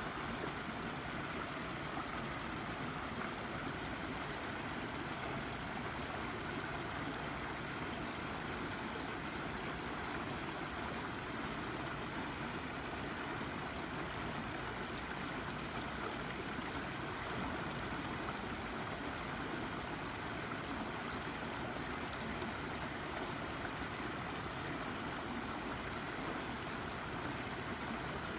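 Shallow brook babbling steadily over and around a rock, an even rush of running water.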